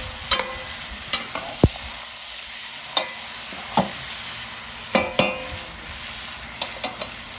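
Chicken curry frying and sizzling steadily in a large metal wok while a long-handled spatula stirs it, knocking and scraping against the pan about ten times at uneven intervals.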